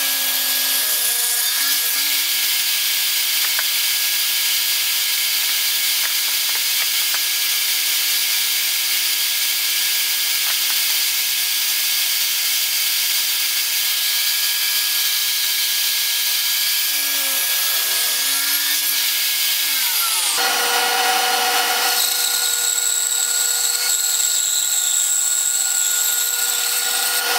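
A table saw runs and cuts through a thick block of pine pushed across it on a sled, with a steady whine over the cutting noise. About two thirds of the way through the whine drops away and the sound changes to a bandsaw cutting the same block.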